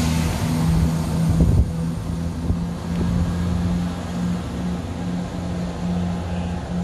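ScotRail Class 170 Turbostar diesel multiple unit pulling away, its underfloor diesel engines running with a steady droning note. The heavier rumble of the passing coaches drops about a second and a half in as the last coach goes by and the train draws away.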